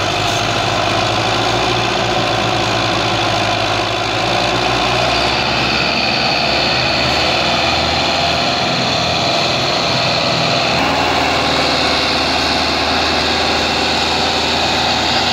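Belarus tractor's diesel engine running steadily under heavy load, hauling an overloaded sugarcane trolley hard enough to lift its front wheels and blow black smoke.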